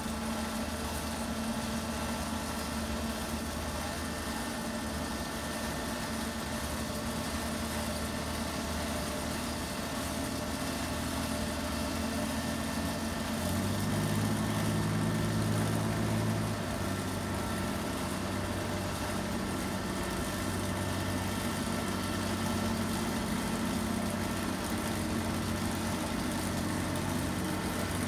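Dazzini TCI260VH quarry chain saw machine running steadily while its chain arm feeds into the rock. Its hum shifts and gets louder about 13 seconds in, then settles.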